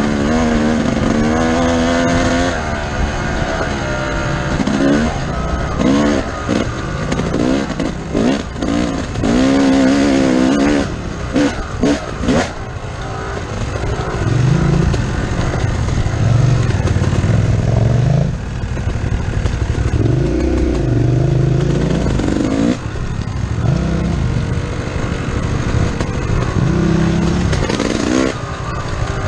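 Motorcycle engine under way on a dirt trail, its pitch rising and falling over and over as the throttle is opened and closed. In the first half come a run of short knocks and rattles.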